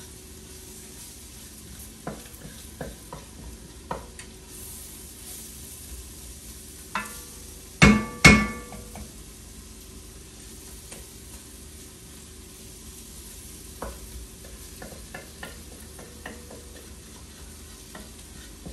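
A long spoon stirring and scraping in a red enamelled pot on the stove, with scattered light clicks as it touches the pot, over a faint sizzle of food cooking. Two loud knocks come close together about eight seconds in.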